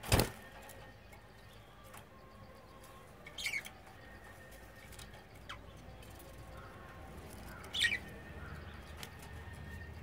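Budgerigars: a short, loud flutter of wings right at the start as a budgie flies past, then two brief chirps, about three and a half and eight seconds in.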